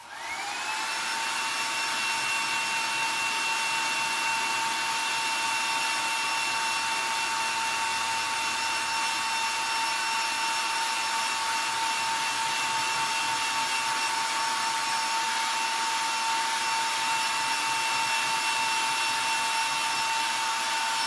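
Hair dryer blowing steadily, a rush of air with a steady whine, used to heat-set freshly airbrushed paint on a lure. It spins up with a rising whine right at the start and winds down with a falling pitch when switched off at the end.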